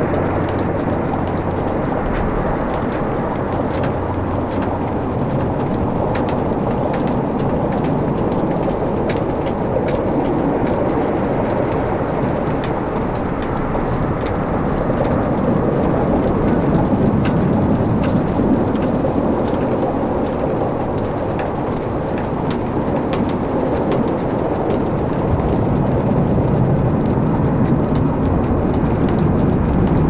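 Wood fire burning in a fireplace: a steady low rush of flames with frequent sharp crackles and pops from the burning logs scattered throughout.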